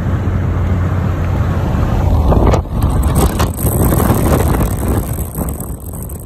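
Road noise inside a moving car at motorway speed: a steady low rumble of tyres and wind, with a few brief knocks about halfway through.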